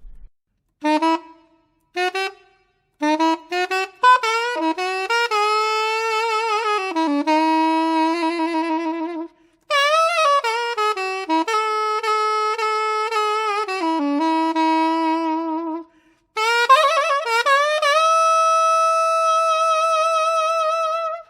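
Curved B-flat soprano saxophone playing a solo melody: a few short detached notes, then three flowing phrases, the last ending on a long held note.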